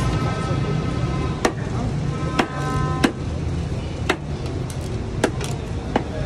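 Sharp metallic knocks, about one a second, as Kabuli pulao rice is scooped out of a large aluminium cooking pot, over a steady low hum. A held, horn-like tone sounds at the start and again for about half a second midway.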